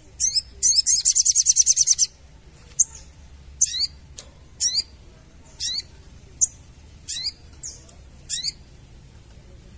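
Sogon bird's rapid, high chattering trill (crecetan), lasting about two seconds. Short sharp high calls follow about once a second.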